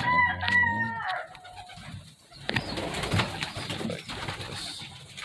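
A young pigeon squeaker gives a drawn-out squeaking peep for about a second, falling in pitch at the end. A few seconds later come soft rustles and knocks from the birds and their straw nest bowl being handled.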